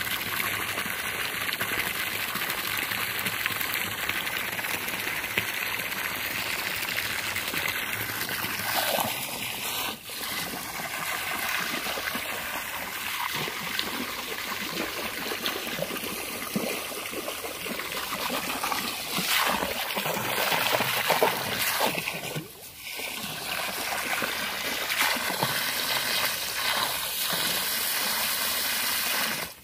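Water from a garden hose splashing into a swimming pool: a steady hiss of spray hitting the water. It drops away briefly about ten seconds in and again about twenty-two seconds in.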